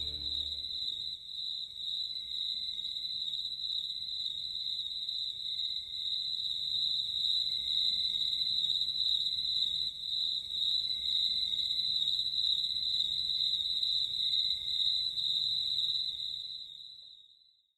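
Crickets chirping in a steady, high, pulsing trill, fading out near the end.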